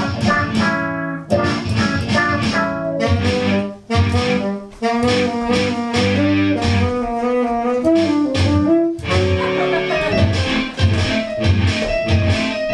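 Instrumental break in a jazzy song-and-dance number: brass, guitar and bass playing a bouncy melody with a steady beat, no singing.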